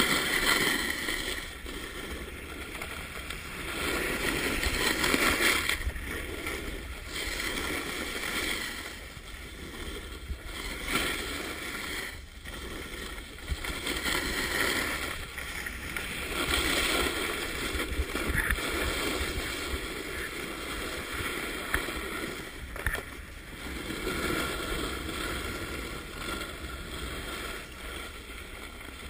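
Snowboards sliding and carving on packed snow: a scraping hiss that swells and fades every few seconds with the turns, over a steady low rumble of wind on the microphone.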